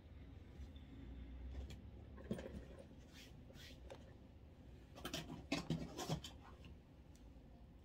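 Faint clicks and rustles of small makeup items being handled on a table, with a cluster of sharper clicks about five to six seconds in.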